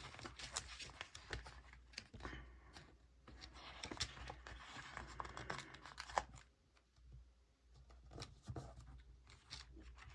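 Faint rustling, tearing and tapping of paper stickers being peeled from a sticker sheet and pressed onto a planner page, a string of short crisp clicks with a quieter pause about two-thirds of the way through.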